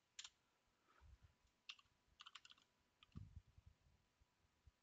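Faint computer keyboard keystrokes: a few scattered key clicks with a short flurry in the middle, and a couple of soft low thumps.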